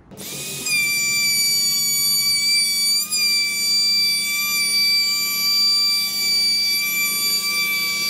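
Small handheld electric sander switched on, spinning up within half a second and then running with a steady high motor whine as it is worked against the edge of a plywood board.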